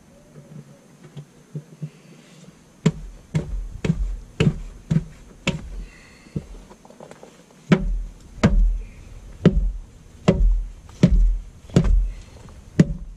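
A series of sharp knocking blows, each with a low thump, about two a second. There is one run from about three seconds in, a short pause, then a second run.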